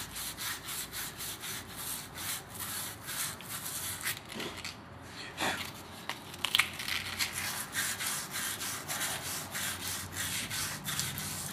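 Sandpaper rubbed by hand around the copper commutator of a Flex LW1509 wet sander's armature in quick repeated scratchy strokes. This is routine maintenance: the commutator is sanded lightly until it is bright copper again, to clear the carbon and stone slurry that fouls the brush contact.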